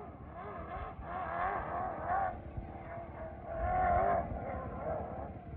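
Off-road vehicle engines revving, their pitch wavering up and down again and again, loudest about a second in and again near four seconds.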